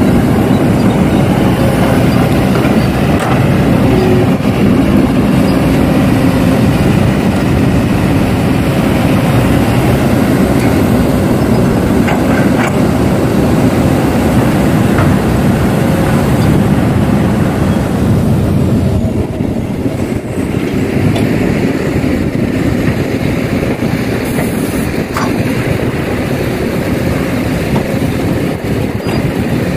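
Kobelco hydraulic excavator and dump trucks working: a steady, loud diesel machinery rumble with a few faint knocks. The noise eases a little about two-thirds of the way through.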